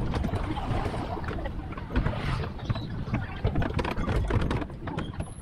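Open-sided road tram in motion, heard from aboard: a steady low rumble with frequent small rattles and knocks from the carriage, and wind buffeting the microphone.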